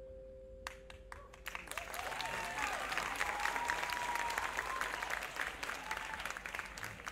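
Audience applauding and cheering after a marching band's show. Scattered claps start about a second in and swell into full applause with shouts, while the last held note of the mallet keyboards fades out.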